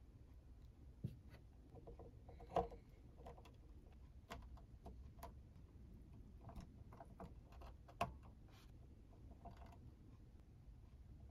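Faint clicks and taps of small painted figure parts being handled and pressed together, the sharpest about a second in, at two and a half seconds, and about eight seconds in.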